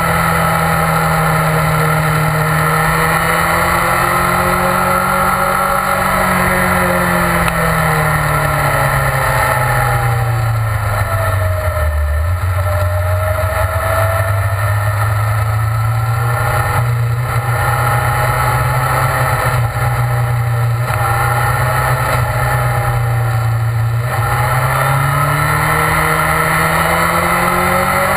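Onboard sound of a BMW S1000RR's inline-four sport-bike engine running on track, with wind noise. The engine note falls slowly over the first dozen seconds, holds low and steady, then climbs again near the end as the bike accelerates.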